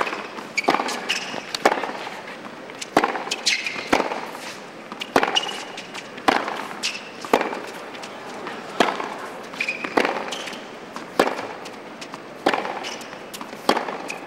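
Tennis ball in a baseline rally on a hard court: sharp racquet strikes about every second and a quarter, alternating from end to end, with the ball's bounces between them and brief shoe squeaks on the court surface.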